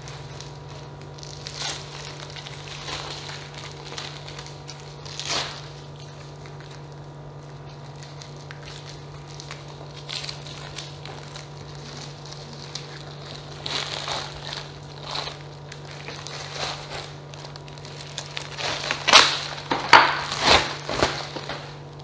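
Plastic packaging crinkling and rustling in irregular bursts as a cutting mat is pulled out of its plastic bag and handled in its clear wrapping, loudest in a cluster of sharp crinkles near the end. A steady low hum runs underneath.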